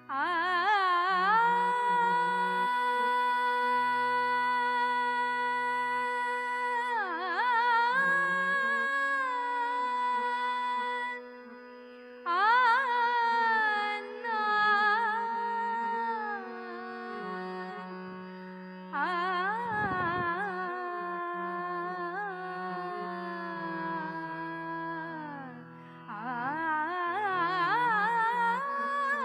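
A woman singing Hindustani classical vocal in raag Kedar: long held phrases with slow slides and ornaments between notes, broken by short pauses. A harmonium holds and shifts sustained notes beneath the voice.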